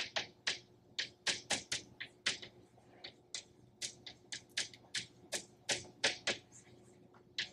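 Chalk writing on a blackboard: an irregular run of short, sharp taps and strokes, about three or four a second, as letters are written.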